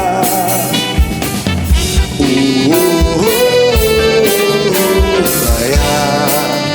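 Live band playing an instrumental passage: a horn section with saxophone carries a sliding melody over a steady drum beat.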